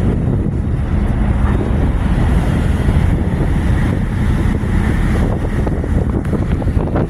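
Strong wind buffeting the microphone over the steady low rumble of a tugboat's engine, with the wash of the sea.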